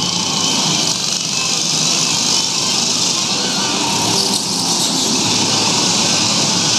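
Racing go-karts running laps on an indoor track: a steady, loud mix of kart motor noise with no break.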